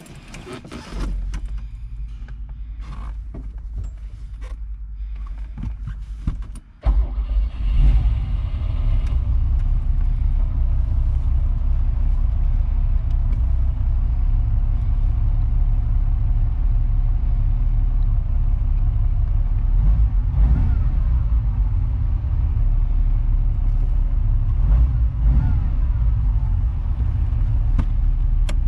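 1972 Ferrari Dino's V6 engine being started: it cranks for about six seconds, catches about seven seconds in, then settles into a steady idle. Around 20 and 25 seconds in it is briefly blipped twice, with a rise and fall in pitch each time. Heard from inside the cabin.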